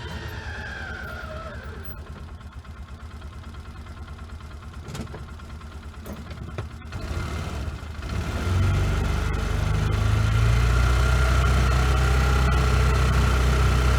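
Polaris vehicle engine running, quietly at first with two sharp clicks; about eight seconds in it becomes much louder and deeper and holds a steady, rumbling run with a constant whine above it.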